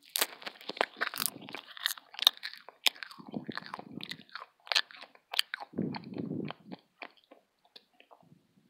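Close-miked crunching and chewing of UFO candy, picked up by an earphone microphone held at the mouth: many crisp crunches through the first few seconds, thinning out to sparser chewing toward the end.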